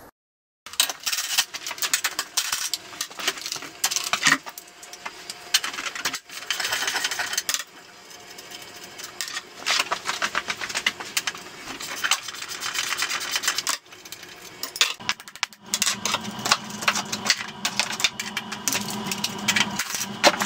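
Rapid, uneven clicking and clattering of tools working on a small ATV's chassis as parts are taken off. It starts after a brief silence and grows steadier and denser with a low hum about three quarters of the way in.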